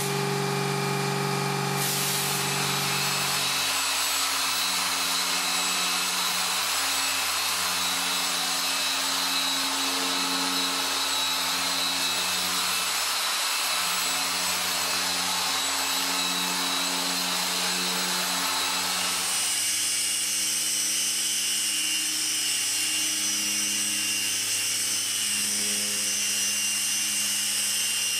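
Small handheld paint polisher running steadily against car paintwork, a continuous motor whir with a hiss; the sound changes character about twenty seconds in.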